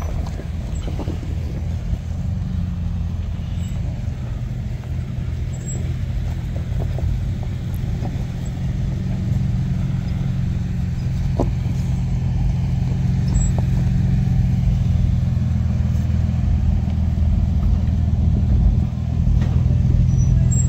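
4x4 truck engine and drivetrain running steadily on an off-road trail, a low hum that grows slowly louder, with a few light knocks.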